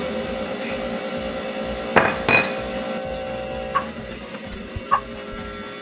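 Electric cotton candy machine running with a steady motor hum as spun sugar is wound onto a stick. Two sharp metallic clinks come about two seconds in, with a couple of lighter ticks later.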